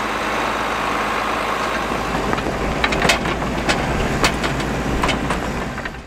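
John Deere 4840 tractor's turbocharged six-cylinder diesel engine idling steadily, with a few sharp metallic clicks in the middle stretch.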